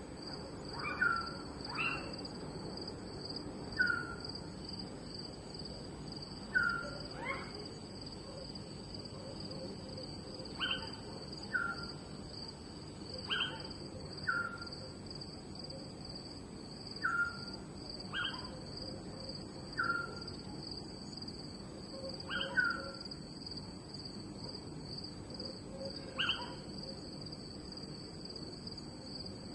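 Night ambience: crickets trilling in a steady high continuous chorus. Short chirping calls recur every second or two over it, with a few quick rising chirps, against a low background hiss.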